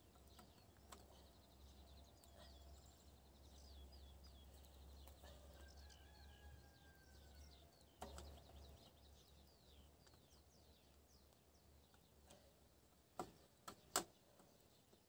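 Faint birdsong, with many small birds chirping, over a low rumble that fades out about nine seconds in. A few sharp clicks come near the end, the last one the loudest.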